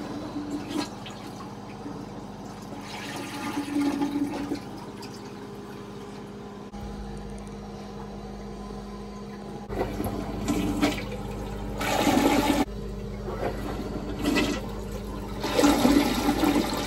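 Toilet flushing, its water rushing and swirling down the bowl in several surges over a steady low hum. The test flushes show the bowl draining freely now that the blockage is cleared.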